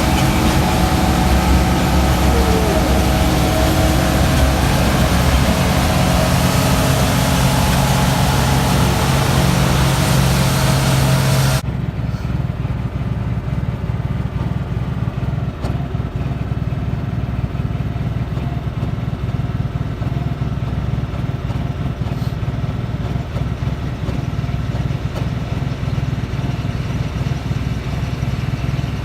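Farm harvest machine's engine running steadily. About a third of the way in, the sound changes abruptly to a duller, quieter drone with less hiss.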